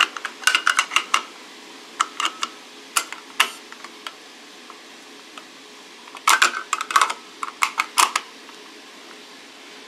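Sharp metal clicks and clacks of a Remington Model Four semi-automatic rifle's detachable box magazine being pushed into its well and worked by hand. The clicks come in three quick clusters: at the start, about two to three seconds in, and about six to eight seconds in.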